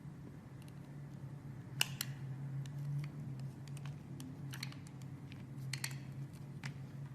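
Blade cutting into a bar of soap: scattered crisp clicks and crackles, with a few sharper snaps about two and six seconds in, over a steady low hum.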